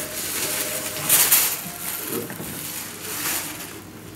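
Rustling and crinkling of a white wrapping bag being pulled off a glass vessel. The rustling is loudest a little after a second in, then dies down.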